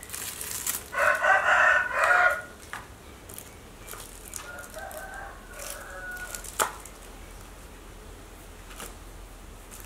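A rooster crowing loudly about a second in, then a second, fainter crow a few seconds later, with a single sharp click near the end of the second crow.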